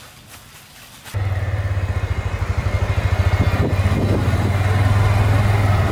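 Motorcycle engine of a motorbike-pulled passenger cart running on the road, starting suddenly about a second in with a low, rapidly pulsing drone that grows louder as it comes closer.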